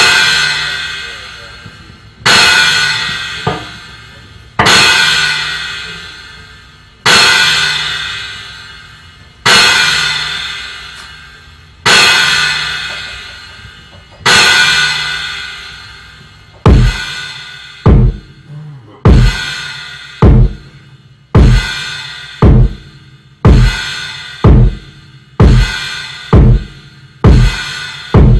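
Opening of a cybergrind/noise set: slow, evenly spaced crashing drum-and-cymbal hits about every two and a half seconds, each ringing out. About two-thirds of the way in, heavy bass-drum hits take over at about twice the pace.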